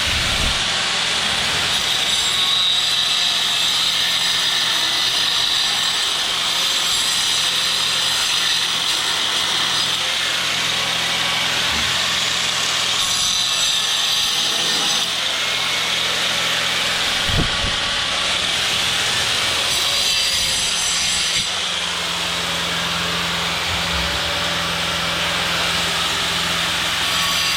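An electric power tool running continuously at a steady pitch, with a low hum under it and a few brief knocks.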